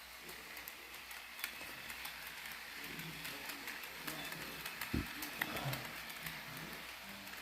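HO scale model freight train running slowly, faint, with scattered light clicking and a single sharp knock about five seconds in.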